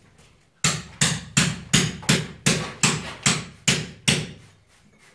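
Hammer blows struck against a wall in a steady series, about three a second, some ten strikes starting under a second in and stopping about four seconds in.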